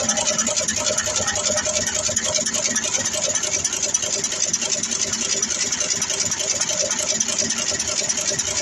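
Automatic LED insertion machine running, its insertion head and component feed making a rapid, even mechanical clatter as it places LEDs into a circuit board.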